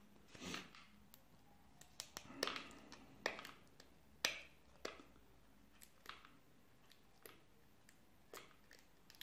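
Hands handling and opening a small paperboard box: scattered faint clicks and taps with short scraping rustles of the cardboard flap.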